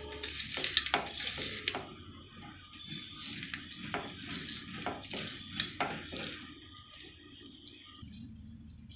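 Bare hand mashing roasted bitter gourd and potato in a stainless-steel bowl: soft squishing and crackling with scattered light clicks against the metal. It grows quieter near the end.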